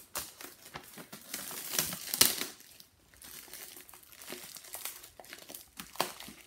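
Clear plastic shrink-wrap being peeled and pulled off a box, crinkling and crackling irregularly, with the sharpest crackle about two seconds in.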